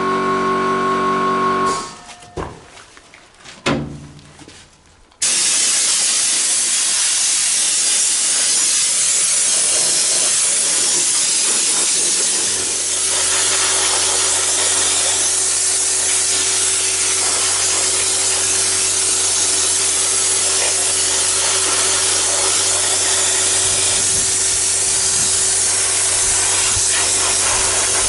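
Fordson Major tractor engine running, cutting off about two seconds in; after a few quiet seconds with a couple of clicks, a pressure-washer lance sprays degreaser onto the engine with a loud, steady hiss. About halfway through, a low steady hum joins the hiss.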